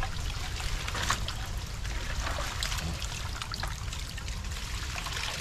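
Water trickling and splashing in a shallow, muddy rice-field pool, with many small irregular splashes as the pool is scooped out.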